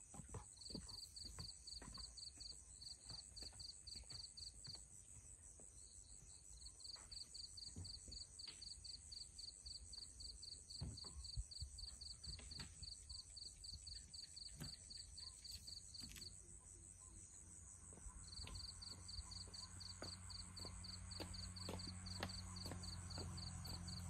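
Crickets trilling in long bouts of rapid pulses over a steady high insect whine, with faint scattered clicks. A low steady hum comes in about three quarters of the way through.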